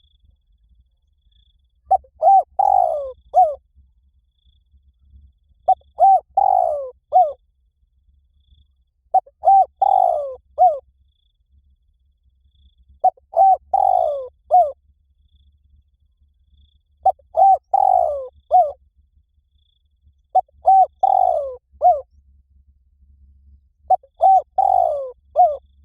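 Spotted dove cooing: a phrase of several quick coo notes, repeated seven times at even gaps of about four seconds.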